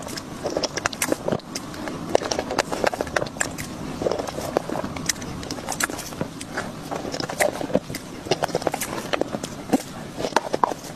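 Close-miked wet mouth sounds of someone eating soft cream-layered crepe cake: irregular smacking and clicking of lips and tongue while chewing.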